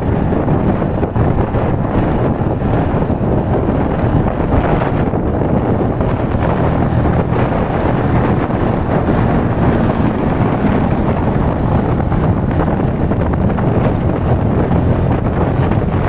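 Keeway K-Light 202 motorcycle engine running at a steady cruising speed, mixed with heavy wind rush on the microphone.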